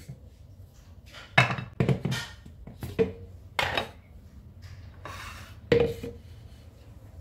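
Plastic blender jar and its lid being handled on a countertop: a string of knocks and clatters as the lid is pulled off and set down.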